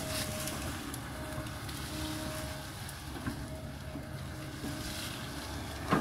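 Kobelco hydraulic excavator's diesel engine running steadily under load as it cuts into a hillside, with a whine that comes and goes. A sharp knock near the end.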